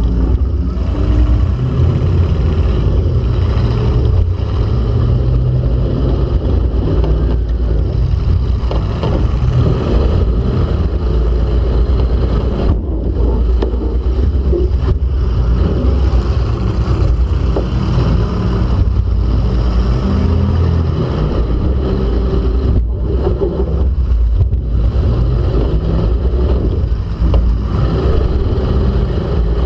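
Demolition-derby car's engine heard up close from inside the car, running hard and revving up and down as it maneuvers, with a few brief throttle lifts.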